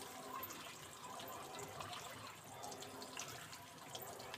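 Sliced onions frying in hot oil: a steady, faint sizzle with small crackles, the first stage of making birista.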